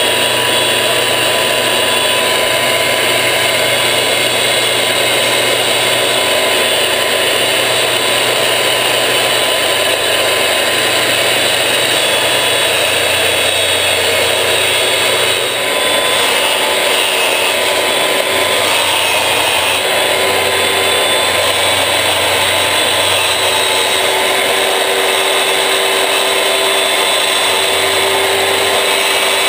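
Porter-Cable handheld circular saw running under load as it rips through plywood sheet, a loud steady whine with a brief dip about halfway.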